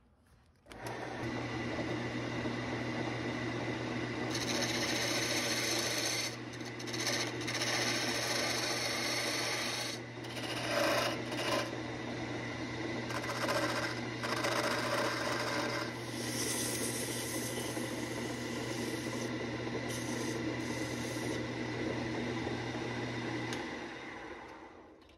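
A belt-driven wood lathe is switched on about a second in, its electric motor humming steadily, while a hand turning tool shaves a spinning wooden pattern with a hiss that comes and goes from about four seconds in. Near the end the motor is switched off and the lathe winds down.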